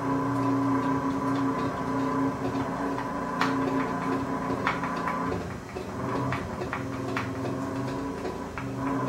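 Radio-controlled monster truck's electric motor and drivetrain running with the wheels off the ground: a steady whine that dips for a moment about halfway, with scattered small clicks and taps.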